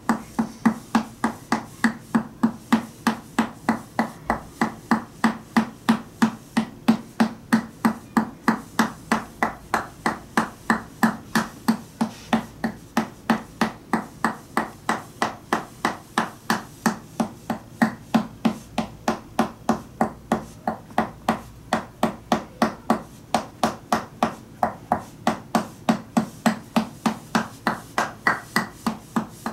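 Tok sen mallet therapy: a wooden mallet knocking on a wooden wedge stick pressed against a person's chest, in a steady rhythm of about three knocks a second. The knocks have a hollow, airy sound.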